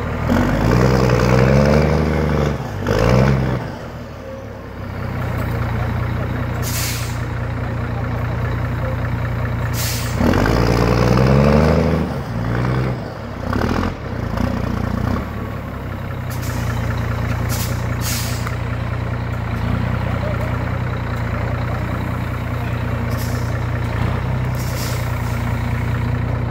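Scania truck's diesel engine running under heavy load, revving up hard twice as the loaded rig works to climb out of the mud: once in the first few seconds and again about ten seconds in. Several short sharp hisses of air, typical of a truck's air brakes, break in between.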